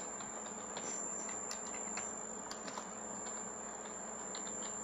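Faint, irregular clicks of a computer keyboard being typed on, over a steady background hiss and low hum.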